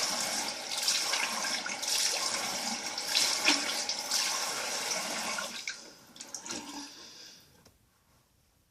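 Bathroom sink tap running, water splashing as a face is washed. The steady rush stops about five and a half seconds in, and a few softer splashes follow.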